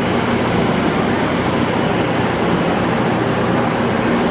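Diesel-electric locomotive engine idling: a steady drone with a low hum.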